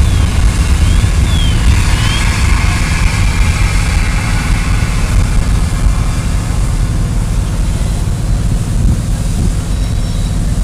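Fire hoses spraying a wide water fog onto a burning propane tank, a loud steady rushing rumble that eases a little as the flame is knocked down.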